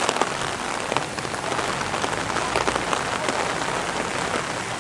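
Steady rain falling, a continuous hiss with a dense patter of individual drops striking close by.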